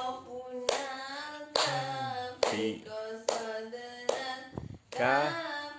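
Hands clapping in a steady beat, a little more than once a second, with voices singing a children's song along with the claps.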